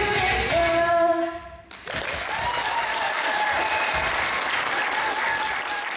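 Two girls singing a duet into microphones over a backing track, ending on a held note about a second in. After a brief pause the audience applauds, with some cheering over the clapping, and it tails off at the end.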